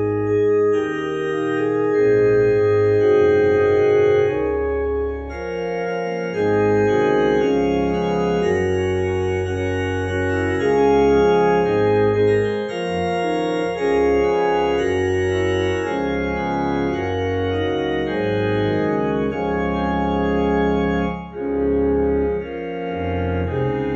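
Technics two-manual electronic organ playing a traditional hymn in held chords over a moving bass line, with short breaks between phrases about five seconds in and again near the end.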